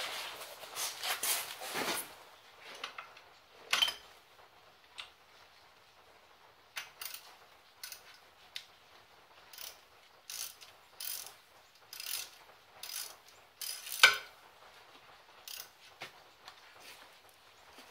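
Ratchet wrench clicking in short, irregular strokes on the brake caliper's bolts, with a rasping stretch of handling noise in the first two seconds and one sharp metallic knock about two-thirds of the way through.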